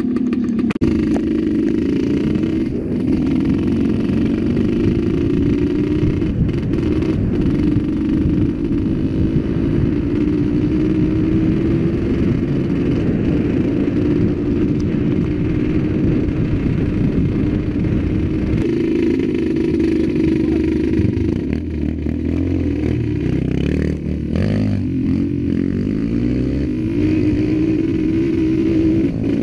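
Trail motorcycle engine running under way, the rider's own bike heard close up, its pitch rising and falling with the throttle.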